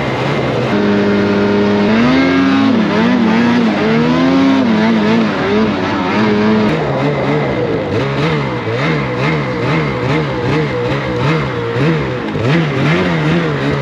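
Snowmobile engine running hard through deep powder snow, its pitch shifting up and down with the throttle. In the second half the revs rise and fall over and over, about once a second.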